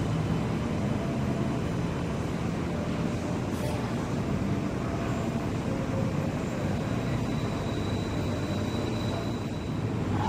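Mitsubishi Crystal Mover rubber-tyred automated light-rail train running along its guideway, a steady low rumble. A thin high whine rises above it for a couple of seconds past the middle.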